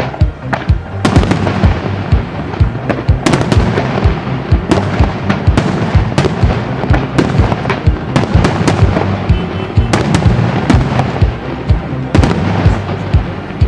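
Fireworks display: a dense, continuous run of sharp bangs and crackles from bursting aerial shells, several reports a second, with music playing underneath.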